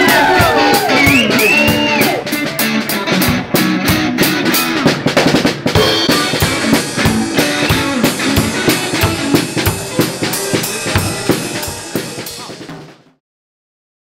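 Rock band instrumental outro: a drum kit with bass drum and snare keeps a fast, steady beat under electric guitar and bass, with a few gliding high notes in the first two seconds. The music fades quickly and stops about 13 seconds in.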